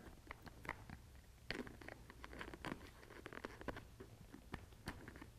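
Faint, irregular scratching and light clicks as an Allen wrench tucks a headset speaker wire down into the crease of a motorcycle helmet's liner.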